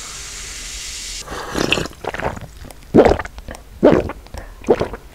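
Liquid pouring steadily and cutting off about a second in, followed by about five short, loud wet squelches roughly a second apart, from the yeolmu kimchi broth and noodles being handled.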